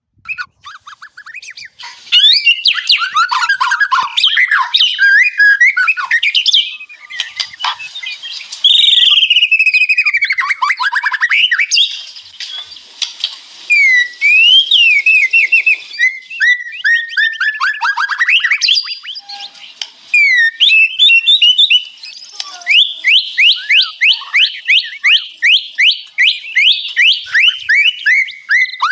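White-rumped shama (murai batu) singing a long, varied song of gliding whistles and fast trills, ending in a run of quick repeated notes.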